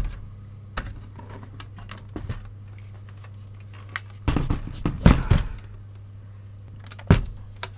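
Handling noise from an opened VCR: scattered plastic clicks and knocks as its chassis and circuit boards are moved, with a cluster of knocks around four to five seconds in and a sharp knock near the end, over a low steady hum.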